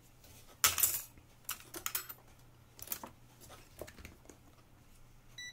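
Handling clatter of a digital multimeter and its test probes: a few sharp clicks and rattles, the loudest about half a second in. Near the end the meter gives a short electronic beep.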